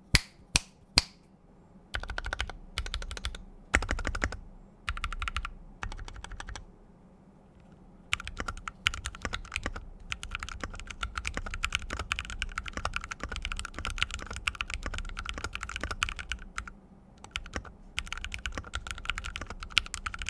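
Custom D65 mechanical keyboard with lubed Noir Rose linear switches and PBT keycaps being typed on. A few single keystrokes, then short bursts of typing, then fast continuous typing from about eight seconds in, with a brief pause near the end.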